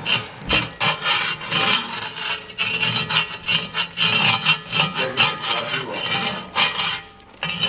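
Slotted spatula scraping the bottom of a cast iron Dutch oven through a thick, foaming butter-and-flour roux, in quick repeated back-and-forth strokes, about two or three a second. The roux is kept moving so it does not stick and burn.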